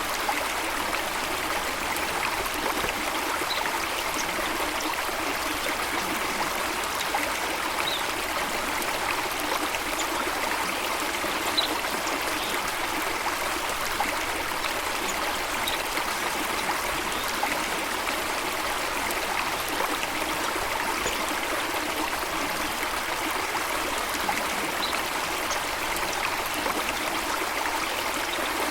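Flowing water running steadily, with a few brief high bird chirps every few seconds.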